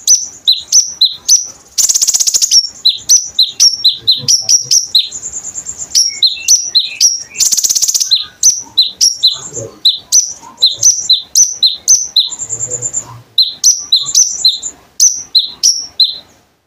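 A konin, a small Indonesian cage songbird, singing a fast, loud song of sharp high chirps in quick succession, broken twice by a dry buzzy trill and a few held high whistles.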